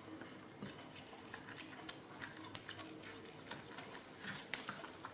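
Faint, irregular little clicks and smacks of baby macaques eating jackfruit, with hands pulling the fruit's flesh apart on a plate.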